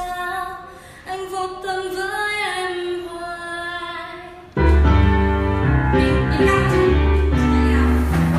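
A woman singing alone without accompaniment. About halfway through, loud recorded pop music with strong bass starts suddenly and keeps playing.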